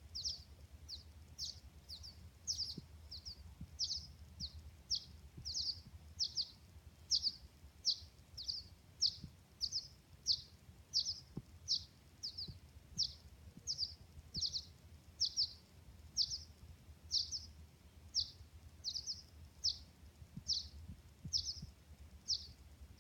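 Baby birds calling: a steady series of short, high chirps, each sweeping quickly down in pitch, about one and a half a second.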